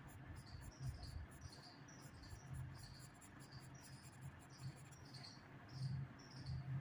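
Faint cricket chirping: short high chirps repeated about two to three times a second, over a low steady hum.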